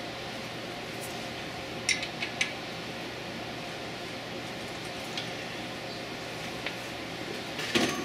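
Light metallic clinks of a small wrench and steel bracket parts on the excavator boom: three close together about two seconds in and a short run near the end, over a steady background hum.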